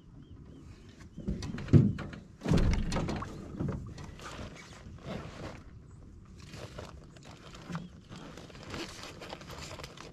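Irregular knocks and thumps of gear and feet on an aluminium boat hull, with rustling handling noise; a sharp knock about two seconds in is the loudest, followed by a longer scraping thump.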